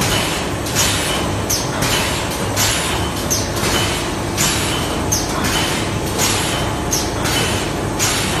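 Automatic juice-carton packaging machine running, its printed packaging film feeding in from a roll. A steady machine hum carries a repeating hissing, clacking cycle a little under once a second, with a short falling whistle about every other cycle.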